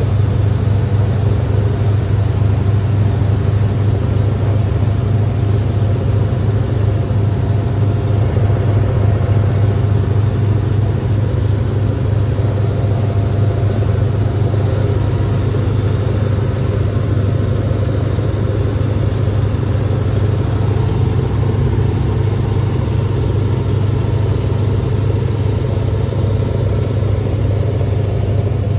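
An engine running at a steady speed: a loud, even low rumble that does not change throughout.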